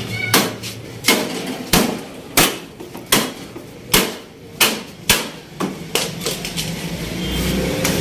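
A hammer strikes the sheet-metal casing of a window air conditioner that is being broken apart. There are about ten sharp blows, roughly one every two-thirds of a second, and they grow weaker and stop about six seconds in.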